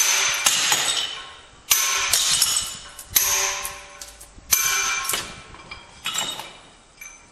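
Hammer striking a steel chisel into pink marble in runs of quick blows separated by short pauses, each blow ringing metallically.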